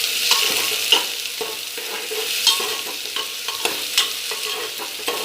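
Sliced onions sizzling steadily in hot oil in a pressure cooker while a spoon stirs them, with irregular clinks and scrapes of the spoon against the metal pot.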